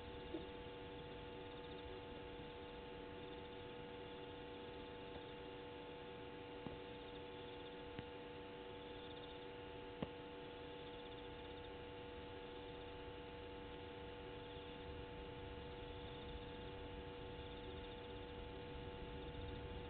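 Faint, steady electrical hum made of several constant tones, with a few soft clicks; the loudest click comes about ten seconds in.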